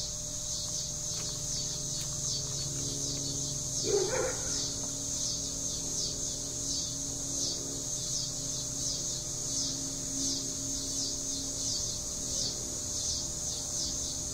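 Insects singing in chorus: a high, rhythmic pulsing buzz of several pulses a second. A short, louder sound comes about four seconds in.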